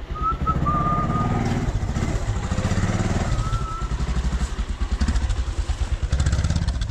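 Motorcycle engine running as the bike is ridden, a fast, even low throb.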